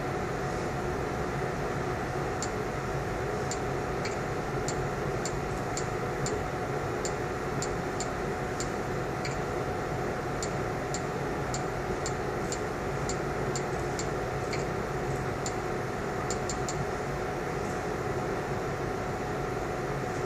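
Typing on an Android tablet's on-screen keyboard: a short, sharp click with each key press, irregular, about two a second, starting about two seconds in and stopping near the end. A steady hum runs underneath.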